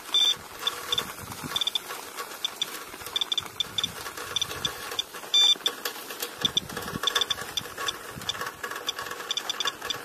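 Radiation counter beeping at random, uneven intervals, often several beeps in quick succession, with clicks between them. It is a high count rate from rainwater, which the user calls "hot rain".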